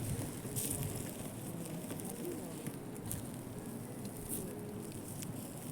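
Campfire crackling, with scattered sharp pops over a steady hiss of burning.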